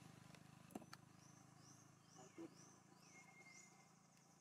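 Near silence: faint outdoor ambience with a high-pitched chirp repeated about two or three times a second, quickening near the end.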